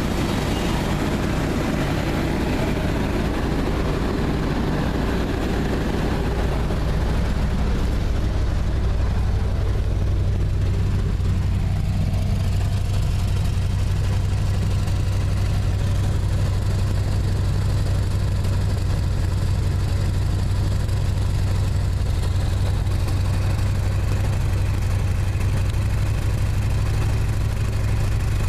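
Chevy 350 small-block V8 running steadily with a low exhaust drone, carrying the nagging misfire the owner is chasing. A rougher mid-range noise over it fades out about six seconds in.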